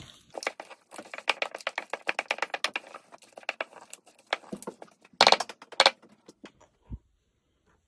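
Wooden spoon stirring a thick, chunky oat and banana cookie dough in a plastic mixing bowl: quick rapid clicks and scrapes as the spoon works the oats and knocks the bowl's sides, with a louder clatter a little past five seconds in. The stirring stops about six seconds in.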